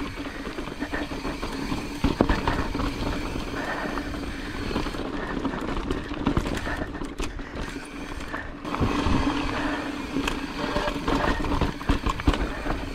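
Pivot Firebird mountain bike riding over rocky trail: repeated knocks and rattles from the bike as it hits rock, over a steady buzz.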